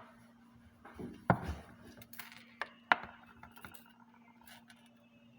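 Kitchen dishes and utensils being handled and clattering, with two sharp knocks about a second and three seconds in and a few lighter clicks, over a steady low hum.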